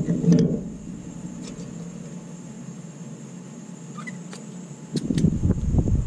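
A few light clicks from new brake pads and shims being handled at the caliper. About five seconds in, a low rumble starts and carries on.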